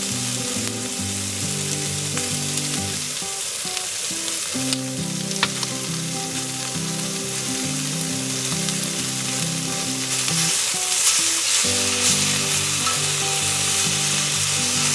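Sliced meat sizzling on a thick 4 mm steel griddle plate, a steady hiss that grows louder about ten seconds in as the pieces are turned with tongs. Soft background music with held notes plays under it.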